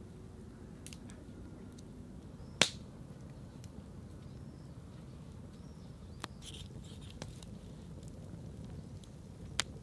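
A large knife cutting up a whole raw chicken on a wooden stump: a few sharp clicks and knocks, the loudest about two and a half seconds in, over a low steady background. Faint bird chirps in the middle.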